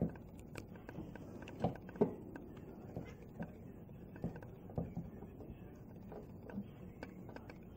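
Irregular light taps and knocks of crows on a skylight and roof. Two sharper knocks come close together about two seconds in, and scattered softer taps follow.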